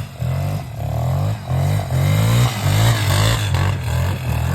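1987 Yamaha Warrior 350 ATV's single-cylinder four-stroke engine being revved, its pitch rising and falling several times in quick blips.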